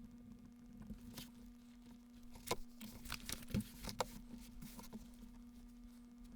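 Light handling noises: a handful of irregular clicks and taps, with some rustling, over a steady low hum.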